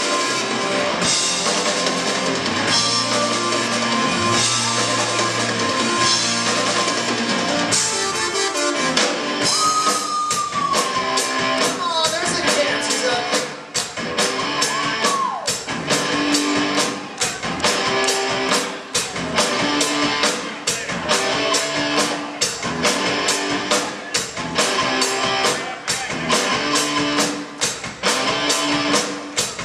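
A live rock band plays with a drum kit and electric guitars. About ten seconds in, the dense opening gives way to a steadier beat, with a lead line sliding down in pitch.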